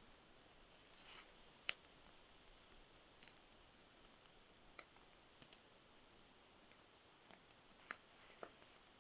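Faint, scattered sharp clicks and snaps over near silence, about a dozen in all, the loudest just under two seconds in. They come from a small wood campfire crackling and a knife cutting through mushrooms.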